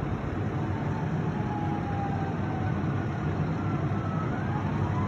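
Fire truck diesel engines running in a steady low rumble, with a siren wailing faintly in the distance, its pitch slowly falling and then rising again near the end.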